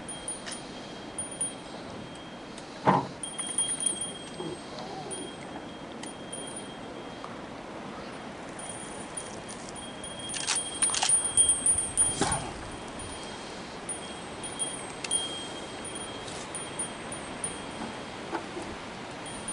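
Faint high metallic tinkling that comes and goes, like a small bell or chime, with a few sharp knocks about three seconds in and again around ten to twelve seconds.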